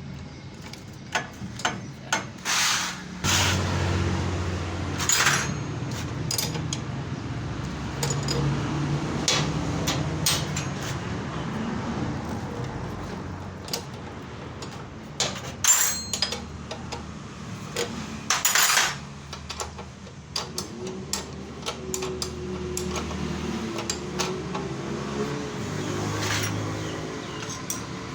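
Metal tools and parts clanking and knocking in irregular strikes, over a low steady hum.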